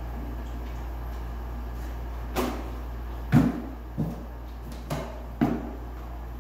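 Five short, dull knocks at uneven intervals, spaced about half a second to a second apart, over a steady low hum.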